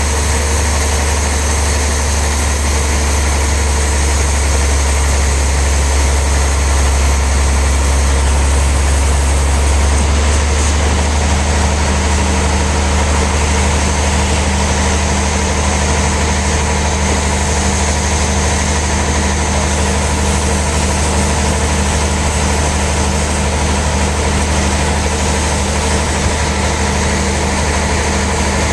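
Heavy sawmill machinery running steadily with a deep engine hum. About ten seconds in, the sound shifts: the high hiss fades and a new, higher hum joins.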